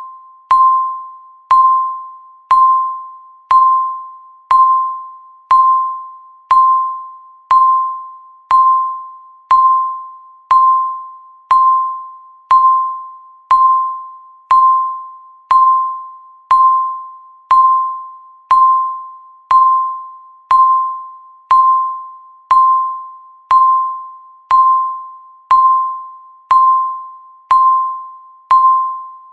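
Countdown timer's tick sound: a single bright, pinging tick once a second, each sharp strike ringing briefly and dying away before the next.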